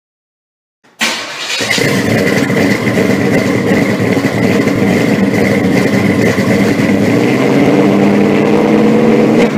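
A loud engine running steadily, starting abruptly about a second in out of silence, with a steady high whine over it.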